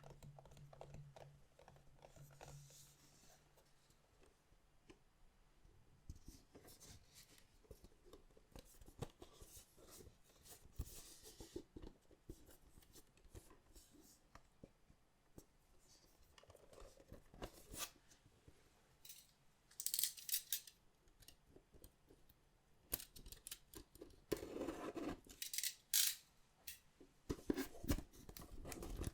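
Packaging of a collectible card box being handled and opened: irregular clicks, scrapes and rustles of plastic wrap and cardboard, with louder cutting and tearing sounds in the last third.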